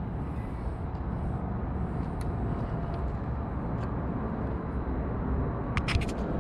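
Steady low rumbling background noise of an open parking garage, with a few sharp clicks near the end.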